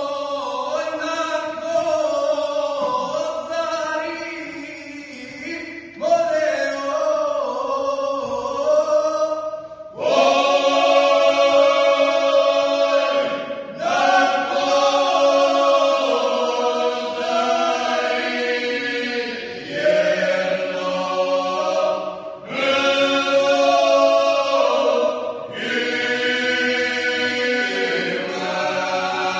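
Men's folk singing group singing a traditional song unaccompanied, several voices together in sung phrases a few seconds long, separated by short breaks.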